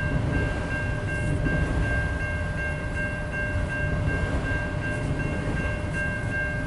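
Railroad crossing bells ringing in a rapid, even ding, over the steady low rumble of a long CN freight train of autoracks rolling through the crossing.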